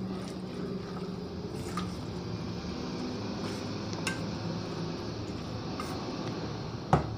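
Wet squishing of grated zucchini, carrot and potato bound with egg and flour, stirred with a spoon in a stainless steel bowl, with a few faint clicks. A low steady hum sits underneath.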